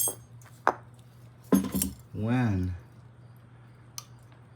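Sharp clicks and clinks of sump pump parts being handled as the float and its on-off switch are fitted back in place, a few separate knocks in the first two seconds and one more near the end, over a steady low hum.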